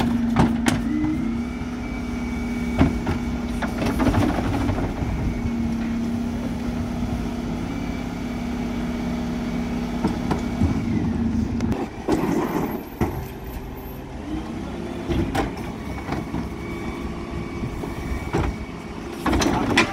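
Refuse truck's hydraulics working the Terberg bin lift: a steady hum and whine for about eleven seconds, then clattering knocks of plastic wheelie bins against the lift. The hum rises again and holds as the next pair of bins is lifted and tipped, with bins banging near the end.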